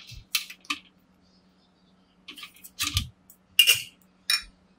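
Metal tongs clinking against a wire cooking rack as a rack of pork ribs is turned over. About six sharp clinks, with a dull thump just before the middle as the ribs are set down on the rack.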